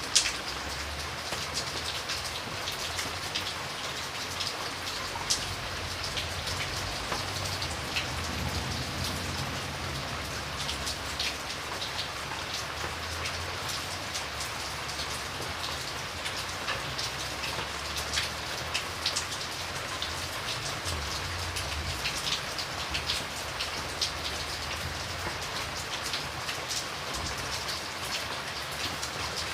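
Steady rain with distinct drops pattering and ticking on a hard surface, over a low rumble.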